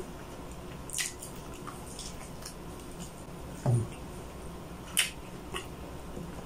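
Close-up wet eating sounds: chewing pork adobo and rice with sharp wet lip smacks about a second in and again near five seconds. A short low sound a little past halfway is the loudest moment.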